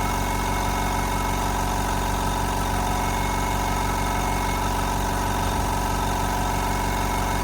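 CNC mill spindle at 20,000 rpm driving an 8 mm two-flute end mill through 5083 aluminium: a steady, loud cutting whine that holds constant.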